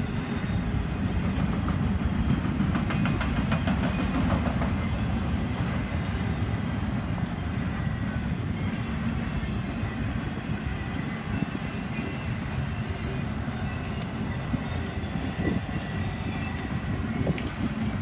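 Intermodal freight cars carrying highway trailers rolling past: a steady rumble of steel wheels on rail, with a run of wheel clicks over rail joints a few seconds in. Wind is buffeting the microphone.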